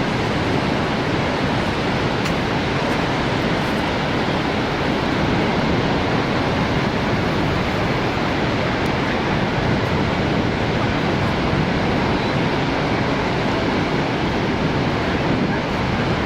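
Steady, loud rush of falling water from Niagara Falls.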